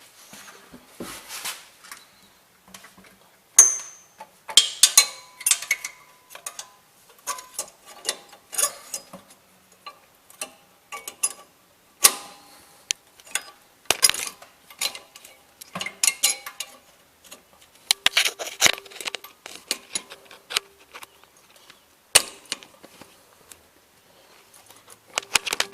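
Parking brake cable and its metal fittings clicking, clanking and rattling in irregular clusters as the cable is worked into place, with a short high metallic ping about three and a half seconds in.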